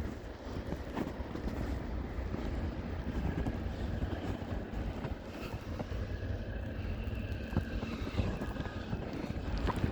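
Wind buffeting the microphone during a snowstorm, an uneven low rumble.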